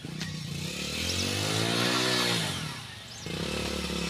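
Motorcycle engine running, its pitch rising and then falling over the first three seconds, then holding steady after a brief dip in level.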